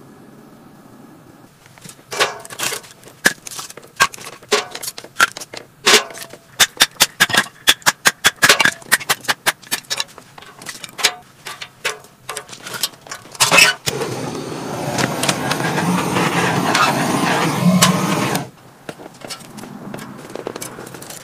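Sharp cracks and snaps of firewood as kindling is split and broken, many in quick succession. About 14 s in, a steady rushing noise takes over for about four seconds, then drops away.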